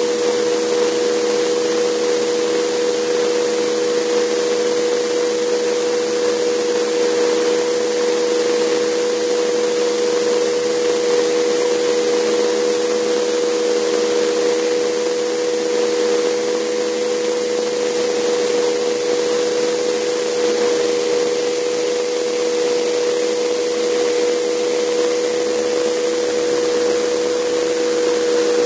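Scale Vario Alouette II RC helicopter powered by a JetCat PTH-2 kerosene turboshaft turbine running steadily in flight, heard from a camera on the airframe. A few steady held tones sit over an even hiss, with no change in power.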